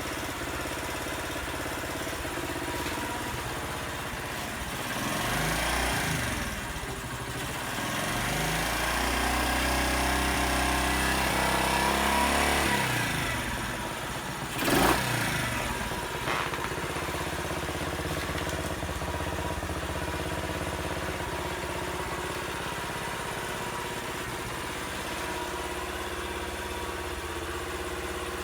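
Honda Little Cub's small four-stroke single-cylinder engine running cold in sub-zero weather. It is blipped up and back down twice, then settles to a steady idle, with one short sharp knock about fifteen seconds in.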